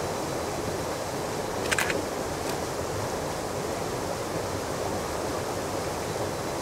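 Small waterfall and creek rushing steadily over rocks. A little under two seconds in, a DSLR camera's shutter fires with a brief cluster of clicks, taking a slow-shutter exposure of the water.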